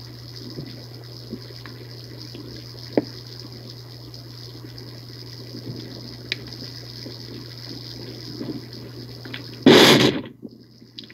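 Sound picked up by a microphone lowered 25–30 m down a 57 m borehole: a steady low hum under a trickling, water-like rush with scattered faint clicks. About ten seconds in comes a brief loud rush, and the sound then cuts out for about a second. The uploader takes such borehole sounds for the sound of tunnel digging.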